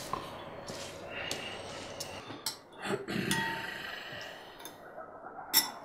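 Crockery and cutlery clinking at a table, with a few soft knocks and one sharp ringing china clink near the end.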